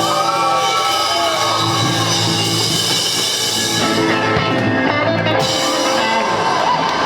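Rock band jamming: electric lead guitar bending and sustaining notes over chords, bass and drums. The high cymbal wash drops away about five seconds in.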